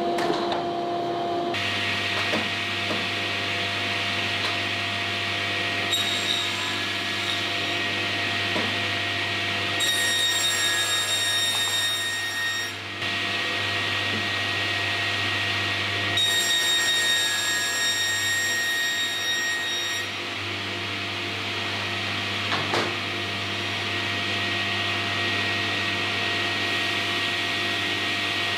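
Prima 2500 sliding panel saw with its dust extraction running steadily, starting about a second and a half in. Its blade cuts through a sheet of 9 mm MDF, giving a higher whine twice, from about ten seconds in and again from about sixteen seconds in, each lasting a few seconds.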